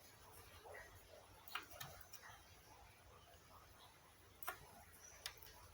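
A few faint, sharp clicks and taps of small hard parts being handled, an RCA connector being fitted to a circuit board, over near silence.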